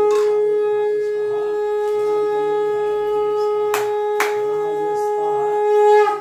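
Conch shell (shankh) blown in one long, steady, held note that cuts off near the end; two sharp clicks sound in the middle.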